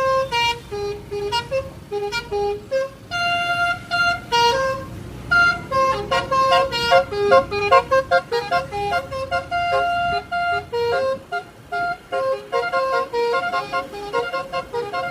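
Car's Basuri telolet horn, a set of multi-tone horns, playing a quick tune of short horn notes, several a second, with only brief pauses between phrases.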